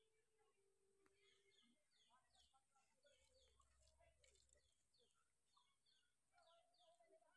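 Very faint bird chirping: many short, quick falling chirps, one after another, over otherwise near silence.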